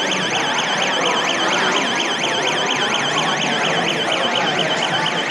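Small electronic alarm siren of a student-built, Micro:bit-driven smart alarm system, sounding a loud, steady warble that sweeps up and down in pitch several times a second: the alarm has been tripped.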